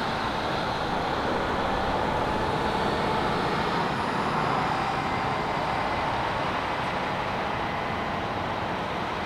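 Vehicle engines running steadily, an even continuous noise with a faint steady whine.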